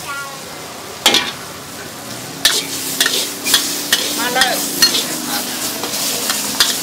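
A metal spatula and ladle scraping and knocking against a large wok as meat and greens are stir-fried over a wood fire, with a steady sizzle underneath. The knocks begin about a second in and come more often from midway, several a second.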